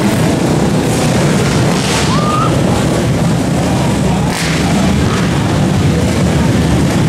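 Loud, steady din at an indoor pit-bike race: a low rumble of small motorcycle engines mixed with crowd noise, with a brief rising tone about two seconds in.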